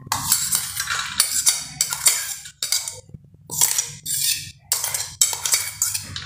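A steel spoon scraping crushed sprouted moong out of a stainless-steel mixer jar into a steel bowl: a run of quick, irregular metal-on-metal scrapes and knocks.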